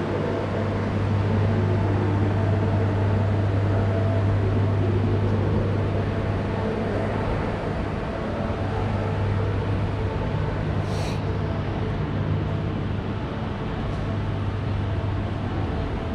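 Steady ambience of a large, almost empty railway station concourse: a constant low hum under a broad rushing background, with a brief high hiss about eleven seconds in.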